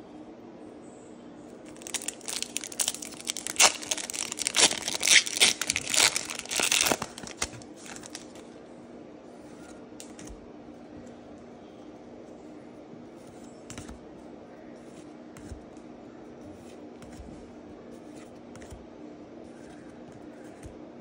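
Foil wrapper of a Pokémon trading-card booster pack being crinkled and torn open, loud crackling for about five seconds, followed by soft ticks of the cards being handled and flipped one at a time over a steady low hum.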